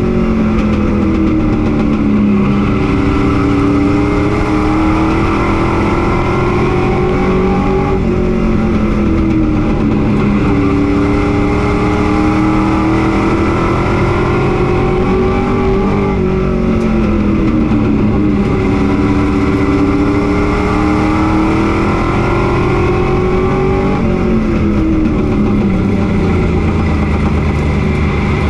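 Pro Truck race engine heard from inside the cab at racing speed, its pitch climbing steadily for several seconds under full throttle and then dropping sharply as the driver lifts, about every eight seconds: one lift for each turn of the oval, four times.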